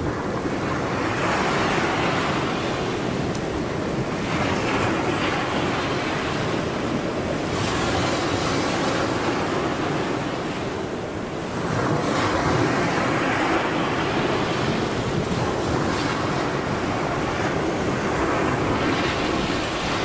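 Black Sea waves washing up on the shore and drawing back, swelling about every three to four seconds, five times in all, over a steady low rumble of wind on the microphone.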